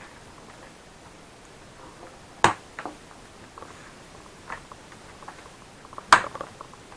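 Small plastic and metal clicks and taps of a laptop being taken apart by hand, with two sharper knocks about two and a half seconds in and near the end, and fainter ticks between them.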